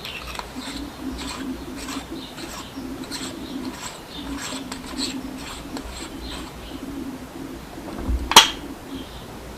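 Scattered light clicks and ticks from a rifle scope being handled, with one sharp, much louder click about eight seconds in.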